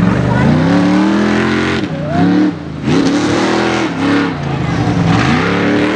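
Lifted Chevrolet Tahoe mud truck's engine revving hard, its pitch climbing and falling several times as the throttle is worked, with a brief dip about halfway through.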